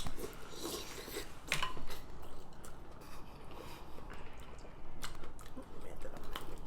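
Close-miked eating sounds: chewing and biting seafood, with scattered short clicks. The loudest burst comes about a second and a half in.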